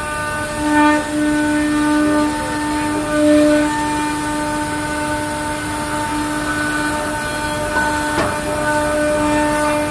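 CNC wood sawing machine running, its narrow vertical blade cutting a curved furniture-leg profile out of a wooden board: a steady whine of several even pitches over a hiss, with a few brief clicks.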